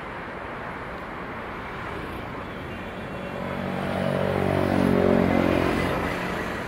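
Steady highway traffic noise, with a motor vehicle's engine growing louder and passing close in the middle, then fading.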